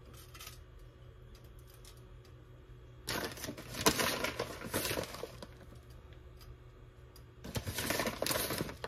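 Grated Parmesan cheese being shaken out of its container over the dip, in two bursts of dense crackly shaking: a longer one about three seconds in and a shorter one near the end.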